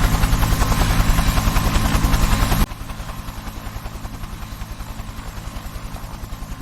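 Helicopter rotor running with a steady, rapid beat of the blades over the engine's drone. About two and a half seconds in, the level drops sharply and the same beat carries on quieter.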